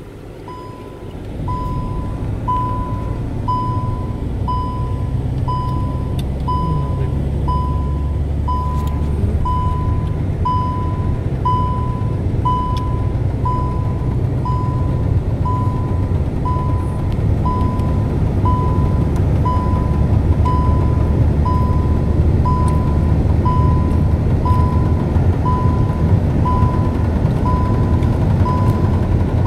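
Car driving, heard from inside the cabin: a steady low rumble of engine and tyres that grows louder in the first couple of seconds. An electronic dashboard beep repeats about once a second over it.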